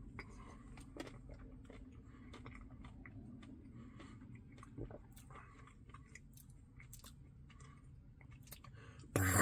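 Faint close-up chewing and wet mouth clicks from eating a Dairy Queen Blizzard, with one slightly louder click about five seconds in.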